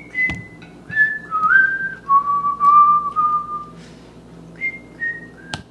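A person whistling a short tune in clear single notes, the melody stepping down in pitch and then climbing again near the end.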